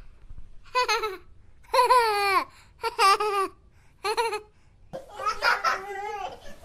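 A small child's high-pitched voice laughing and babbling: four short separate bursts, then a longer run of babble near the end.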